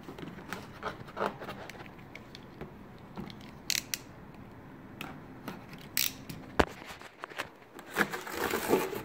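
Hand-held blade cutting at the edge of a cardboard box: scattered scraping strokes and sharp clicks, with a longer run of scraping near the end.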